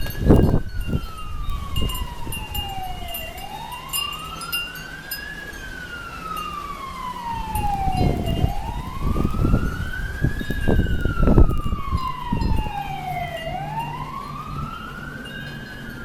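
Emergency vehicle siren wailing, its pitch rising and falling slowly about every five seconds. Wind gusts buffet the microphone underneath, hardest near the start and in the middle.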